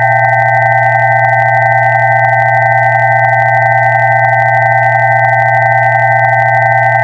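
Synthesized pure tones held steady: a low hum with several higher, constant tones sounding together above it, unchanging in pitch and level.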